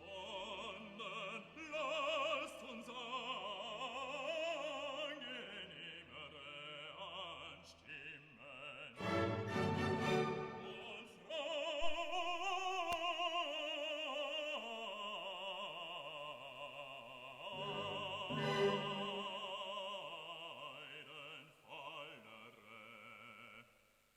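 Background music: an operatic voice singing with heavy vibrato over orchestral accompaniment.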